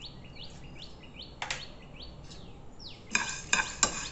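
A spoon stirring black peppercorns and dried red chillies in a dry frying pan: a single clink about a second and a half in, then quick clinking and scraping strokes with a metallic ring from about three seconds in. Birds chirp in the background before the stirring starts.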